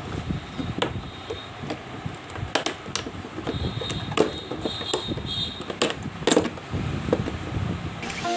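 Plastic refrigerator shelves and drawers being slid and fitted back into the fridge: a series of clicks and knocks, with a brief squeak of plastic rubbing in the middle.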